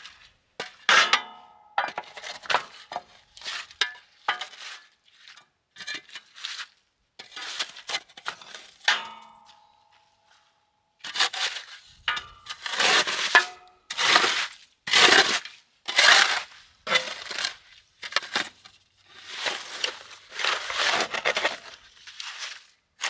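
Shovel chipping and scraping frozen ice out of a water-filled fire pit: irregular clinking, crunching strikes, a couple of which ring briefly, then after a short pause a run of longer, louder scrapes.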